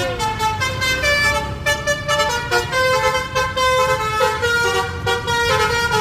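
Basuri V3 telolet horn, a multi-trumpet musical air horn, playing a quick melody of held notes that step from pitch to pitch every few tenths of a second, over a low steady rumble.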